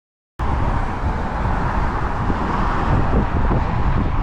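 Silence, then about half a second in a sudden start of steady wind buffeting the microphone, mixed with road traffic noise.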